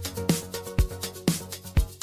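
Background electronic dance music with a steady four-on-the-floor kick drum, about two beats a second, and hi-hats.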